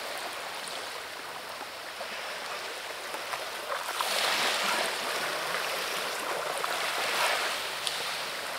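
Small waves washing on a pebble beach: a steady hiss of water that swells about four seconds in.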